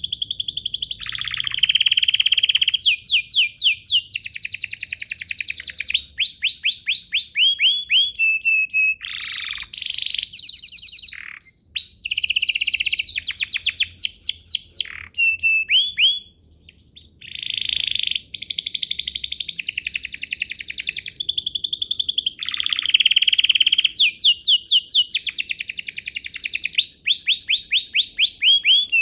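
Domestic canary singing a long, continuous song of rapid trills and rolling runs of repeated notes, with one short pause about halfway through.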